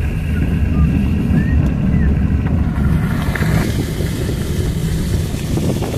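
Car driving on a wet dirt road, heard from inside the cabin: a steady low rumble of engine and tyres.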